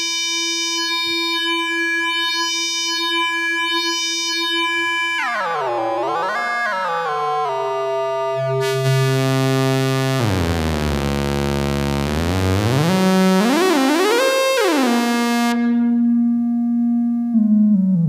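Noise Engineering Sinc Iter Eurorack oscillator in plain mode, playing a single sustained synth tone. The pitch holds steady, then sweeps down and up several times. For several seconds in the middle the tone turns much brighter and buzzier before settling into a steady lower note that drops near the end.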